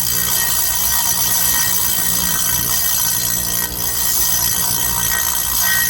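Chain grinder's abrasive wheel spinning with a steady whine and a harsh grinding hiss as it is dressed, the glaze that had turned it black being ground off.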